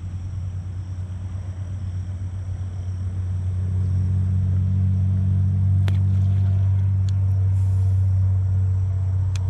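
A motor running with a steady low hum, growing louder about four seconds in, with a couple of faint sharp clicks.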